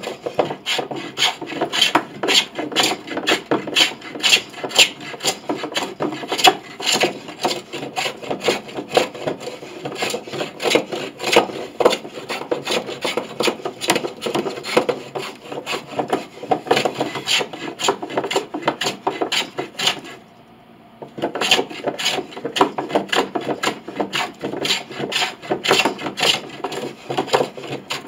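A freshly sharpened hand plane shaving down tough old maple pinblock wood in rapid, rough scraping strokes. The strokes pause briefly about twenty seconds in.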